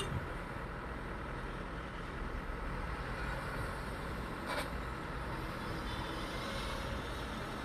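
Heavy diesel engines of a Kobelco SK220 excavator and a dump truck running steadily, a low, even rumble. A single sharp knock sounds about four and a half seconds in.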